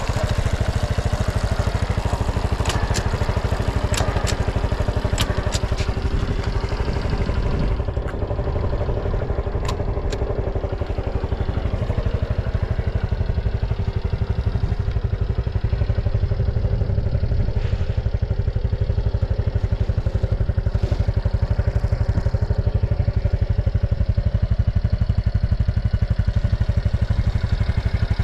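Honda Super Cub 110 (JA07) fuel-injected air-cooled single-cylinder four-stroke engine idling steadily, with no abnormal noise. A few light clicks come in the first ten seconds.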